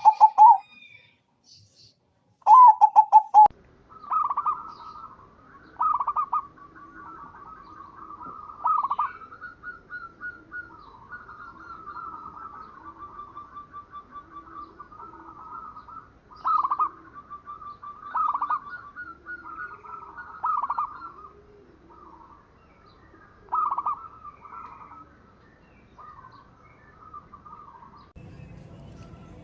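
Zebra doves cooing: two loud, rapid staccato calls in the first few seconds, then an unbroken run of fast cooing notes with louder calls standing out every couple of seconds.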